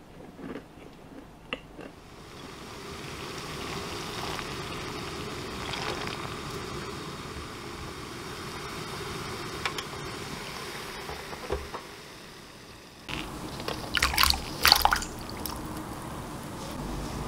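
Almonds blanching in a saucepan of water at a rolling boil, a steady bubbling hiss. About thirteen seconds in, the almonds are tipped from a metal strainer into a glass bowl of cold water with a short loud splash and clatter.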